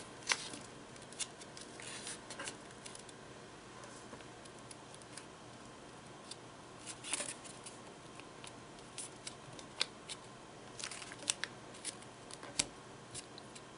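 A sheet of origami paper being folded and creased by hand: faint, scattered crinkles and soft clicks of paper, busier about seven seconds in and again near the end.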